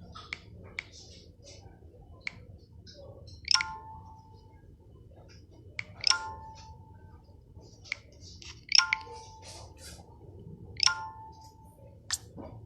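Four sharp clinks of something hard being struck, each ringing on briefly with a clear tone, spaced a couple of seconds apart, with lighter clicks in between.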